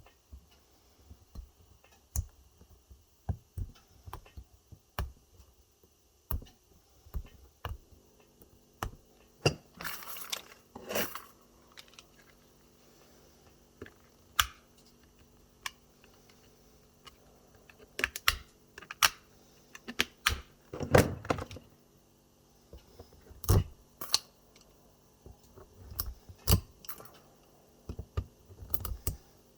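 Pliers working on an e-bike battery pack, pulling it apart cell by cell: irregular sharp metallic clicks, snaps and clinks, with a couple of short scraping rattles.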